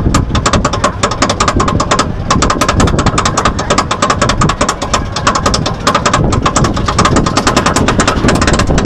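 Roller coaster lift-hill chain pulling the train up the hill: a rapid, even clatter of anti-rollback dogs clicking over the ratchet, about eight clicks a second, over a rumbling chain and train.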